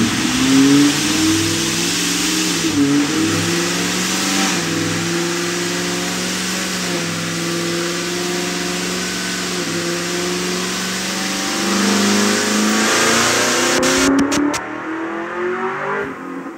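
Supercharged Pontiac G8 GT V8 running under load on a chassis dyno, with a steady hiss over the engine note. The pitch holds mostly steady and creeps upward, then the sound cuts off about fourteen seconds in.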